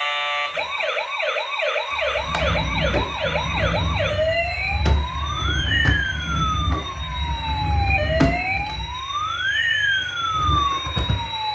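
Electronic emergency-vehicle siren. It starts as a fast whooping yelp, about two or three whoops a second. From about four seconds in it changes to slow rising and falling wails, about four seconds each, with a low rumble beneath.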